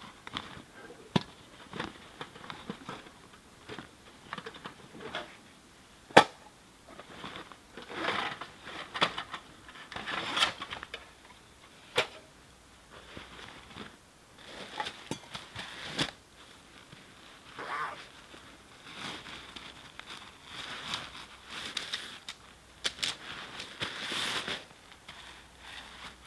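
Nylon stuff sacks and backpack gear rustling and crinkling as they are unpacked, broken by sharp clicks and knocks as items are set down on the ground, the loudest about six seconds in.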